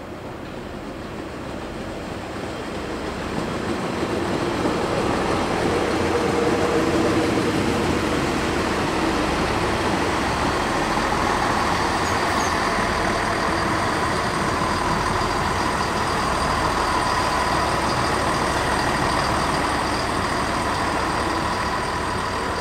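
A Siemens Desiro Classic (class 642) diesel multiple unit running slowly past on the track. Its engine drone carries a steady whine. It grows louder over the first few seconds, then holds steady.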